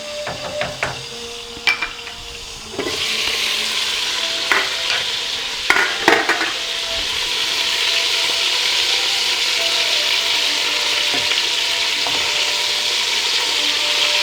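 Chicken frying in a pan. The sizzle starts suddenly about three seconds in and then runs steadily, with a few clicks and knocks of a utensil against the pan, mostly in the first half.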